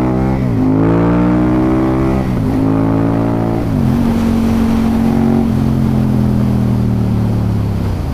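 KTM 1290 Super Duke R's V-twin engine accelerating hard up through the gears, its pitch climbing and dropping sharply with three quick upshifts in the first four seconds, then holding a steady cruise, with wind noise throughout.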